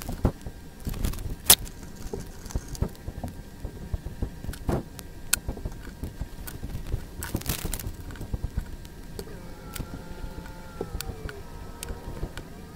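Sped-up workbench handling sounds: small screws, a phono cartridge, a headshell adapter and hand tools clicking and tapping irregularly on a wooden bench.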